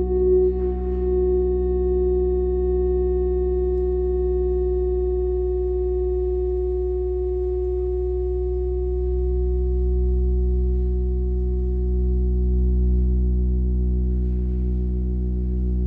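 Live electronic music: a sustained drone of steady sine tones at several pitches over a deep low hum. The upper tones slide slightly in pitch in the first second, then hold.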